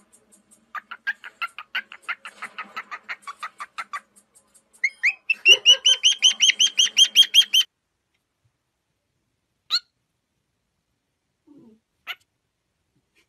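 Cockatiel chirping in fast repeated notes, about eight a second, growing louder about five seconds in and stopping suddenly near eight seconds; a few short single calls follow.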